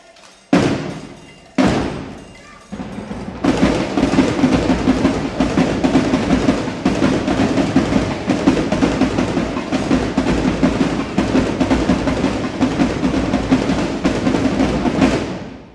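Marching drum section: two heavy drum hits, each ringing out, then from about three and a half seconds in a dense, fast drum cadence that stops just before the end.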